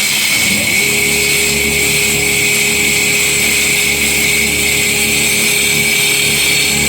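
Multi-head CNC stone cutting machine running with a loud, steady high hiss and a low hum; a steady tone joins about a second in.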